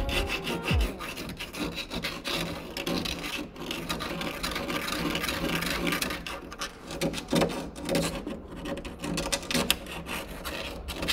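Fine rat-tail file rasping in short, irregular strokes around the edge of a small hole in a steel car sill panel, deburring and opening it out to a snug fit for a rubber grommet.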